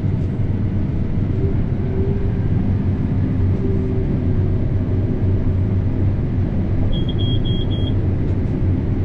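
Combine harvester running under harvest load, a steady low drone. Near the end, four short high beeps in quick succession.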